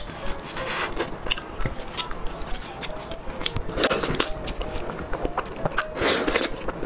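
Biting and chewing sounds of a person eating braised pork knuckle, tearing the meat off the bone with the teeth, with many small mouth clicks and louder bites about four and six seconds in.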